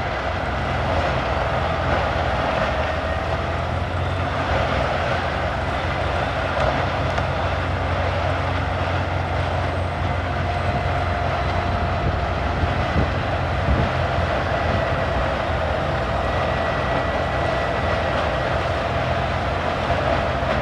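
CBI 6800 CT horizontal grinder running steadily: a constant heavy diesel engine drone with the noise of wood being ground.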